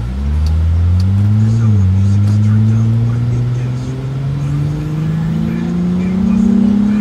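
Lexus IS250 F Sport's 2.5-litre V6 with the muffler deleted, accelerating, heard from inside the cabin. The pitch climbs quickly, drops at an upshift about a second and a half in, then climbs steadily again in the next gear.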